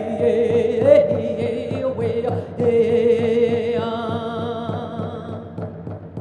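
A female singer performs a Navajo-language song, holding long notes with vibrato over a steady low beat from the band.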